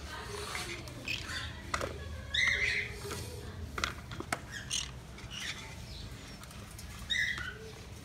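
Pet parrots squawking and chirping in short, high calls about every second, with a few sharp clicks between them.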